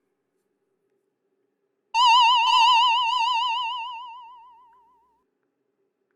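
A cartoon-style sound effect: a single warbling electronic tone that starts suddenly about two seconds in and fades away over about three seconds.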